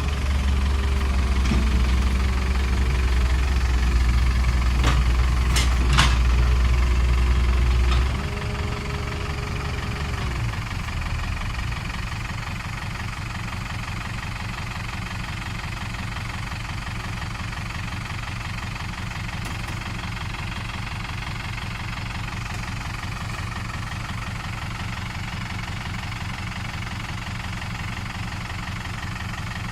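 Heavy diesel engine working hard with a steady whine over its low rumble, and two sharp metal knocks about five and six seconds in. About eight seconds in the load drops, and after about eleven seconds it settles into a steady idle.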